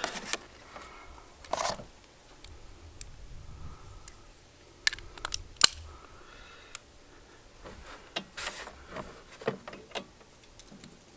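Quiet, scattered metallic clicks and taps with short bits of handling noise, from a spark plug wrench and socket being fitted while a new spark plug is threaded by hand into the mower engine.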